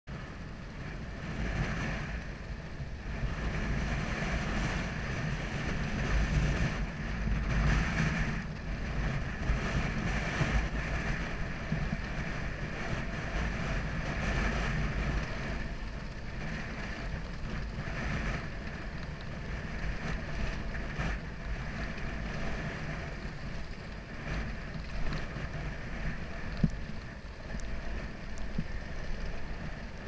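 Motorcycle engine running as the bike rides a rough dirt track, mixed with heavy wind rumble on the microphone; the level swells and eases with the riding.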